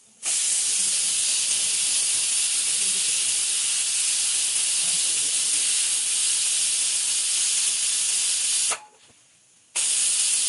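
Pressure cooker whistle venting: steam blasting out past the weight valve in a loud, steady hiss as the cooker reaches pressure. It cuts off abruptly near the end and starts again about a second later.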